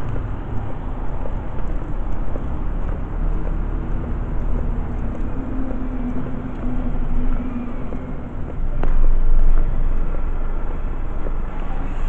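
Low rumble of handling noise from a camera carried low while walking on block paving. A steady low hum runs for a few seconds in the middle, and a sharp click comes about nine seconds in.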